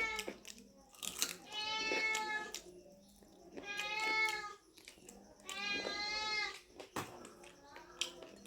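Domestic cat meowing repeatedly: three long, drawn-out meows about two seconds apart, with a few sharp clicks near the end.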